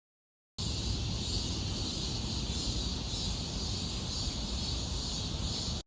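Steady high-pitched drone of a cicada chorus over a low outdoor rumble. It cuts in about half a second in and cuts off just before the end.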